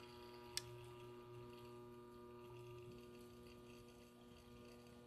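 Faint, steady electrical mains hum, with a single sharp click about half a second in.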